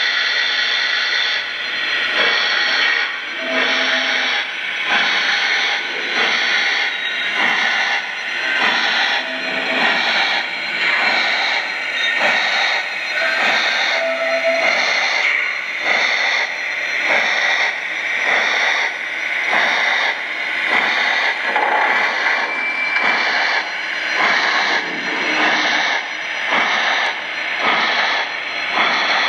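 Lionel Vision GS-4 O gauge model steam locomotive's sound system playing an evenly repeating steam chuff with hiss as the engine runs.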